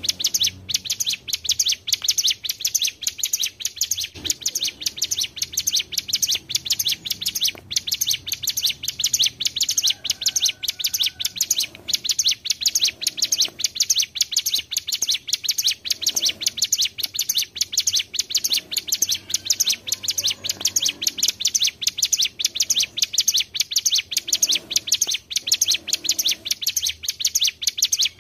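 Ciblek gunung (a prinia) singing a fast, unbroken run of high, sharp chirps repeated several times a second, a trilling song used as a lure recording to draw in other birds.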